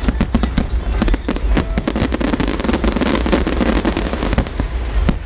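Aerial fireworks display going off in a dense barrage: rapid cracks and bangs, many a second, over a constant low rumble.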